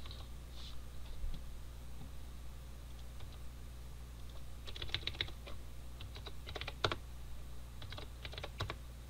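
Computer keyboard being typed in three short runs of keystrokes: a few quick presses about five seconds in, more near seven seconds, and another run near the end. This is a password being entered twice at a terminal prompt.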